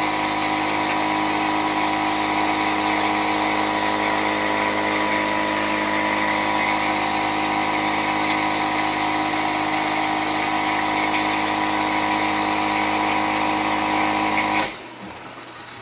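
Loud dishwasher running with a steady whine. It cuts off suddenly near the end.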